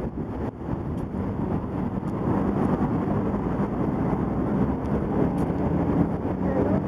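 Steady low rumble of city traffic, mixed with wind on the microphone.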